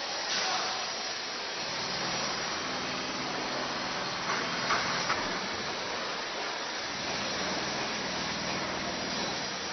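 Construction site noise: a steady hiss with a low machine hum under it, and a few short knocks about halfway through.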